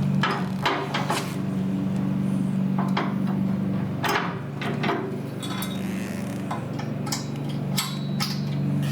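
Irregular metallic clinks and knocks, about a dozen scattered strikes, over a steady low hum.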